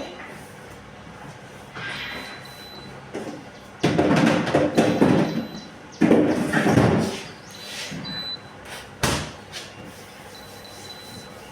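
Plastic fridge parts being handled: two long scraping slides, like a drawer or shelf pulled along its runners, then a single sharp knock about nine seconds in.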